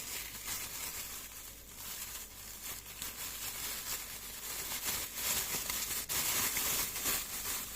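Plastic packaging crinkling and rustling as a small kit part is handled and unwrapped, with scattered crackles, somewhat louder in the second half.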